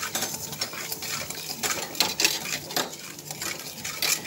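A spoon scraping and clinking against a pan in short, irregular strokes, stirring oil, salt and turmeric together.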